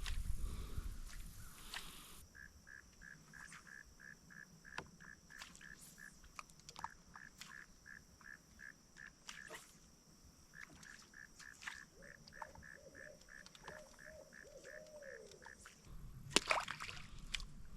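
Quiet swamp ambience: a regular chirping call repeats about two or three times a second, with a steady thin high tone behind it, scattered faint clicks, and a few soft low warbling calls. Near the end a sudden loud knock or splash breaks in.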